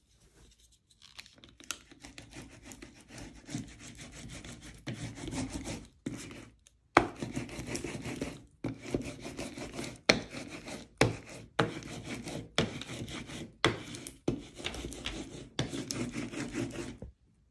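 Hand roller (brayer) rolled back and forth over clear transparency film laid on paper images glued to an MDF board: a repeated rubbing swish in strokes of about a second, with sharp clicks at several of the strokes.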